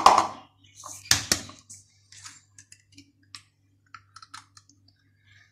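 An egg being cracked into a plastic bowl: two sharp knocks against the rim, the second about a second in, then light clicks and taps as the shell is pulled apart. A faint steady low hum runs underneath.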